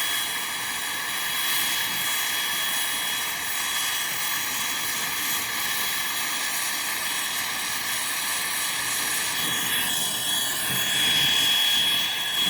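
Brazing torch flame burning steadily with a constant hiss, with a thin high whistle over it, as a drill hole in a copper evaporator coil near its steel end plate is heated for brazing.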